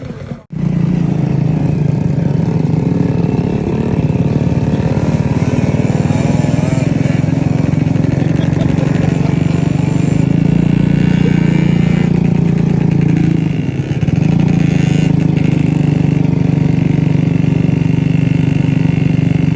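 Motorcycle engine running at a steady speed while riding, with a short dip in engine sound about fourteen seconds in before it picks up again.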